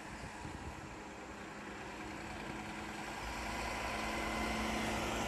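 Recycling truck's engine approaching, a steady drone that grows steadily louder.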